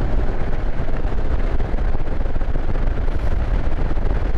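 Loud, steady rush of wind buffeting the microphone on a moving motorcycle, with a heavy low rumble of riding noise underneath.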